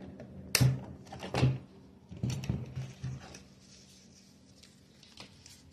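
Handling noise from a plastic Halloween skeleton decoration and its black cloth: rustling with several sharp clicks or snaps in the first three seconds, then quieter.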